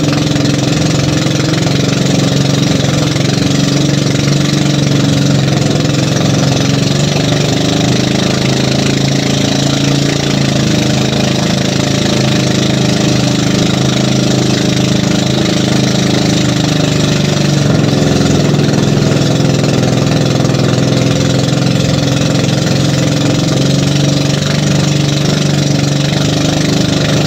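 Small outrigger fishing boat's engine running steadily under way, with the wash of water and spray from the moving hull.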